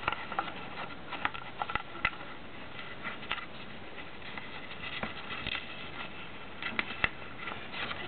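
Sheet of origami paper rustling and crackling as hands fold and crease it, with scattered sharp crinkles, a cluster of them near the end, over a steady hiss.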